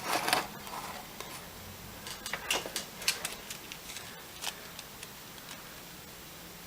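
A few light, irregular clicks and taps of small parts and tools being handled on a workbench while a capacitor's leads are readied for soldering.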